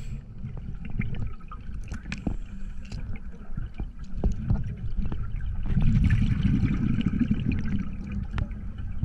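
Underwater scuba breathing: a low steady rumble of water against the gear with scattered clicks and pops, and a diver's regulator exhaust bubbling louder for about two seconds past the middle.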